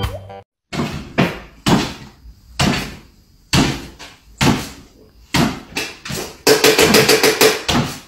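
A small dog hopping on its hind legs on a wooden floor, its paws landing with a thump about once a second, then a quick run of tapping near the end.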